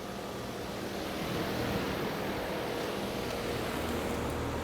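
2016 Ruud 4-ton central air conditioner's outdoor condensing unit running: a steady rush of air from the condenser fan over a low, even hum.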